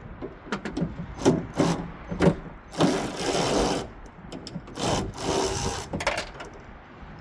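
Socket ratchet working a 13 mm hood hinge bolt loose: scattered clicks and knocks, then two rasping runs of ratcheting about a second each, three and five seconds in.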